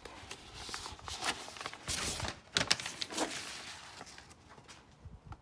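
Hands working at the outboard's starter-relay wiring: an irregular run of small clicks, rustles and scrapes, loudest about two to three seconds in.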